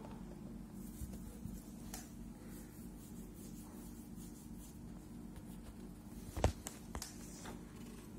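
Handling noise: soft rubbing and a few light clicks over a steady low hum, with one sharper knock about six and a half seconds in.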